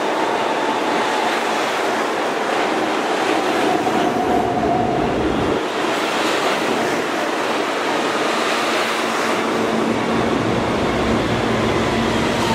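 New York City subway train running: a steady rumble and rail noise with a faint wavering whine.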